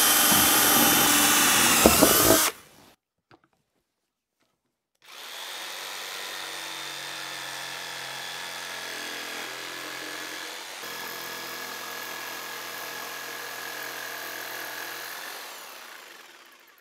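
A cordless drill boring a starter hole through melamine-faced particleboard for about two and a half seconds. After a short pause, a corded jigsaw cuts the oval out of the panel, running steadily and more quietly for about ten seconds before fading out near the end.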